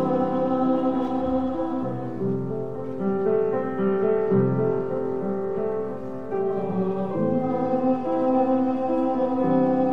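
Slow, quiet church music of long held chords that change about every second over a steady sustained upper note.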